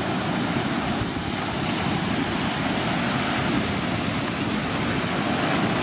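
Sea waves breaking and washing up a sandy beach: a steady hiss of surf and foam.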